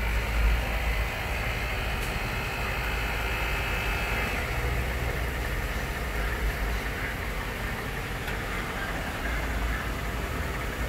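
Mercedes-Benz GL500 (X164) V8 engine idling steadily, a low rumble with no change in speed.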